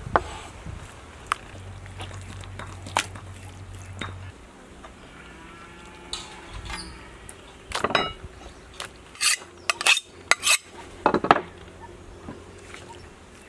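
Kitchen utensils and dishes being handled: scattered clinks and knocks, with a run of louder knocks from about eight to eleven seconds in.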